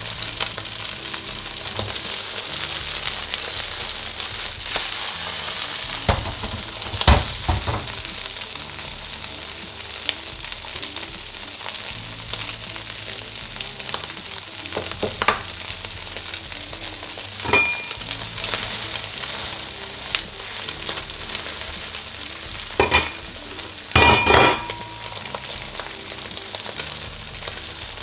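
Egg and noodle mixture sizzling steadily in hot oil in a wok. Several sharp knocks cut through the sizzle, the loudest a short cluster of ringing clanks near the end.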